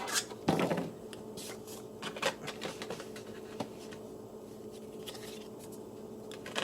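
Trading cards being handled and flipped through by hand: a louder rustle about half a second in, then scattered light clicks and scrapes, over a faint steady hum.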